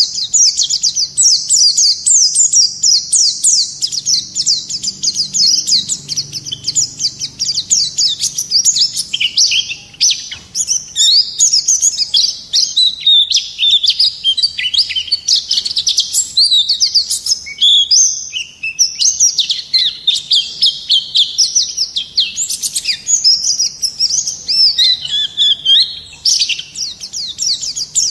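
White-eye (pleci) singing a long, unbroken song of rapid, high twittering notes.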